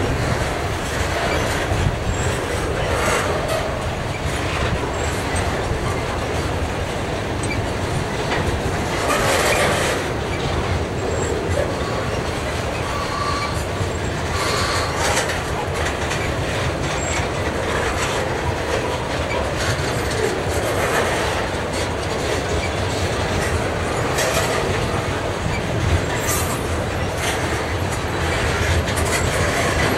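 Freight train of tank wagons rolling past close by: a steady rumble of steel wheels on rail with repeated clacking as wheels cross rail joints. Brief wheel squeals come about halfway through.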